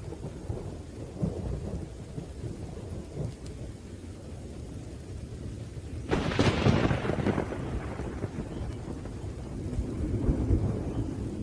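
Rain falling steadily with low rumbling thunder; a loud thunderclap about six seconds in rolls away over a second or two, and another low rumble swells near the end.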